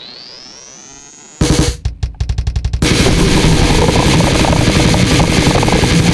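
Pornogrind music: a fading, rising electronic sweep, then about a second and a half in the band crashes in with a run of stop-start drum hits. From about three seconds in it becomes a dense, continuous wall of fast drumming and distortion.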